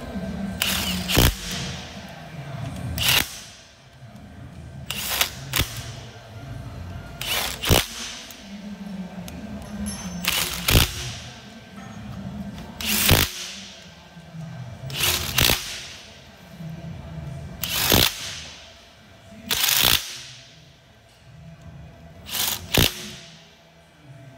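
Makita 18V cordless impact driver with a long socket extension hammering the flange bolts of a hydraulic cylinder, in about ten short bursts, one every two to three seconds, as it moves from bolt to bolt.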